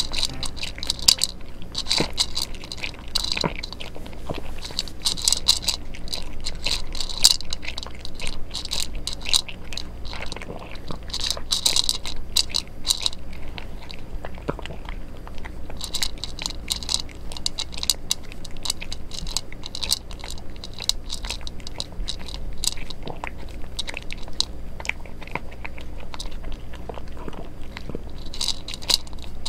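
A cat eating dry kibble from a plastic bowl: a run of irregular crunches and clicks, bunched into louder spells every few seconds. It swallows most pieces nearly whole rather than chewing them.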